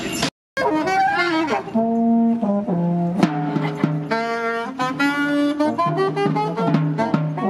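Small band playing a tune on sousaphone and saxophone, with snare drum strokes growing more frequent towards the end. A split-second break in the audio comes just after the start.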